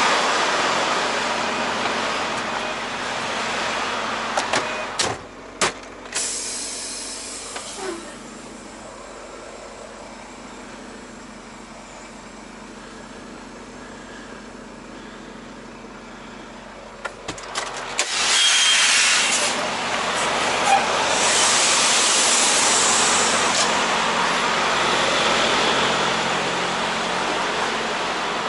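Vehicle noise: a steady rushing hiss broken by a few sharp clicks and knocks about five seconds in, dropping to a quieter stretch, then more clicks and a louder rush of noise from about eighteen seconds on.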